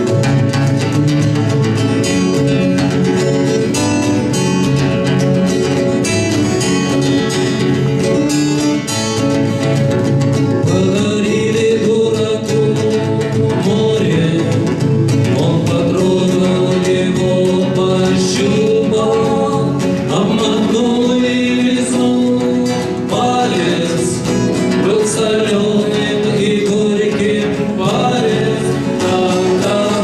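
Two acoustic guitars, one of them a twelve-string, strummed in a steady rhythm; about ten seconds in, two men's voices join, singing the song together over the guitars.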